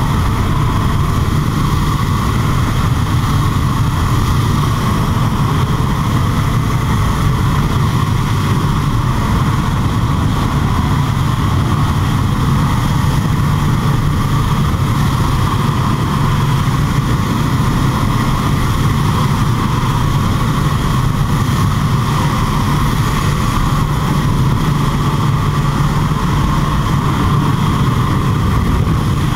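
Steady drone of a propeller aircraft's engine heard inside the cabin, mixed with wind rushing past the open jump door.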